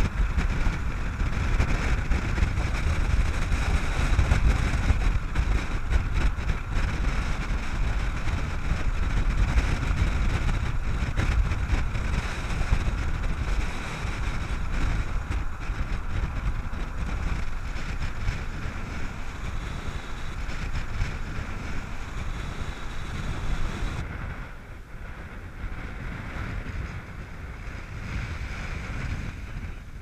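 Wind buffeting the camera microphone over a steady low rumble, typical of riding on an open moving vehicle. In the middle part, surf washes onto a sandy beach. The sound eases somewhat twice.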